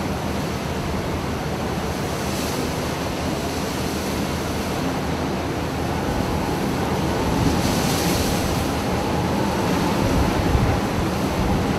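Storm wind and rough sea: a steady rush of wind and breaking waves, with gusts buffeting the microphone as low rumbles that grow heavier near the end.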